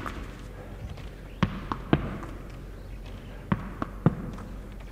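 Tennis ball thrown against a wall and caught, giving sharp taps of ball on wall and hand: a quick group of about three about a second and a half in, and another about three and a half seconds in.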